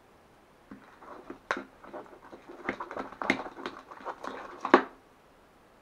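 A spoon stirring sticky glue-and-activator slime in a container. It makes an irregular run of wet squelches and sharp clicks and scrapes of the spoon, from about a second in until near the end.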